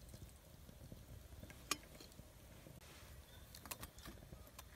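Wood fire crackling in a small stainless box stove: faint ticking with one sharp pop about two seconds in and a few more clicks near the end.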